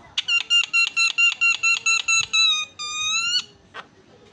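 Javan myna (jalak kebo) whistling a rapid run of about a dozen identical clear notes, roughly five a second, then two longer notes, the last rising at its end. A single sharp click follows.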